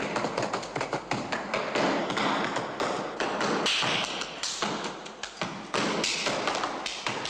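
Rapid, irregular tapping and clicking, dense and continuous.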